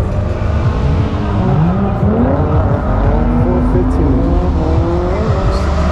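Several car engines running and revving at once, their pitch rising and falling in overlapping sweeps, over a steady low rumble.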